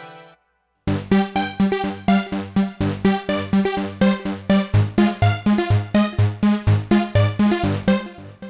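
Roland Integra-7 synthesizer playing a plucky polysynth tone from its Synth Polykey bank: short, quickly decaying notes in a steady repeating sequence of about four notes a second. The sequence starts about a second in and stops just before the end, after the tail of the previous tone has faded out.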